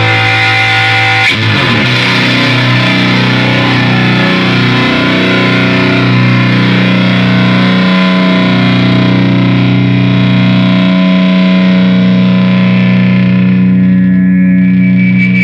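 Electric guitar through a Beetronics Tuna Fuzz pedal into a Marshall Plexi amp and cabinet, heavily fuzzed. A held chord gives way about a second in to one long note that sustains for over ten seconds and turns to feedback as the guitar is held up to the speaker cabinet.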